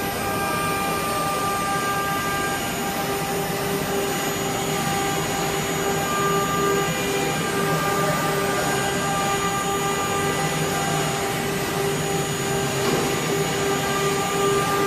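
Air-cooled 9 kW HQD spindle of a CNC router running with a steady whine while its bit cuts through a sheet of board, over a steady machining noise.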